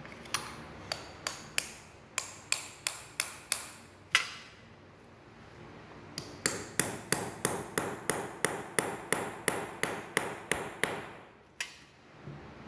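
Steel hammer tapping ball bearings down into a brush cutter's gear head housing: sharp metallic taps with a high ring, about ten in a first series, a short pause, then a steady run of about fifteen at roughly three a second, ending with a single tap.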